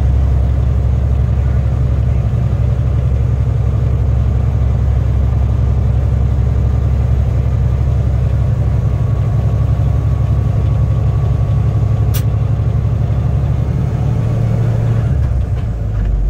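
Semi truck's diesel engine running steadily while driving, heard from inside the cab. There is one sharp click about twelve seconds in, and the engine note dips and changes near the end.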